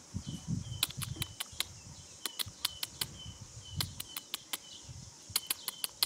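Runs of four or five sharp clicks in quick succession, coming several times, over a steady high insect drone and short high chirps repeating about twice a second.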